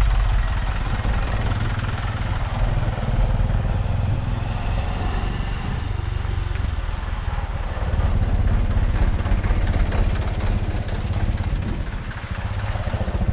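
Motorcycle engine running steadily at low speed as the bike rolls along a rough, muddy dirt road.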